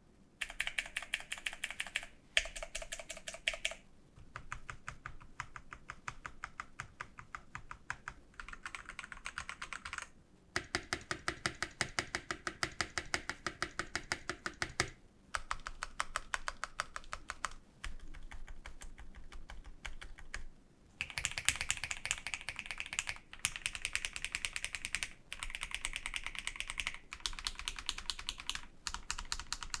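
Typing on a TM680 mechanical keyboard fitted with lubed KTT Strawberry and Akko Rose Red switches and PBT keycaps. Fast runs of key clacks come in bursts of a few seconds, with short pauses between them.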